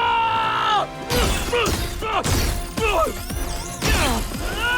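Cartoon fight sound effects over action music: a held chord at the start, then from about a second in a run of smashing and whacking impacts mixed with short falling cries and a high wavering zap.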